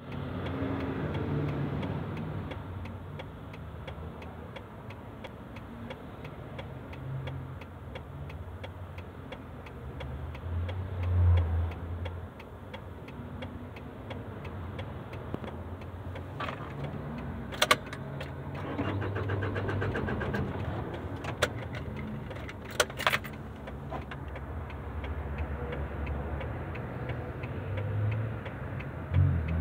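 Vehicle cabin on the freeway: steady engine and road rumble with a flasher relay ticking evenly throughout, and a few sharp clicks around the middle.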